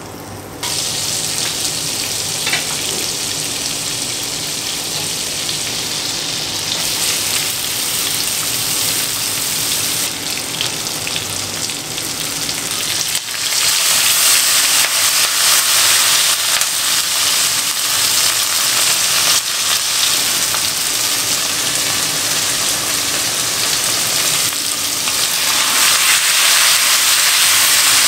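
Coconut oil and butter sizzling in a hot non-stick wok over a gas flame. The sizzling turns louder about halfway through as green chillies and crushed tomatoes drop into the hot fat.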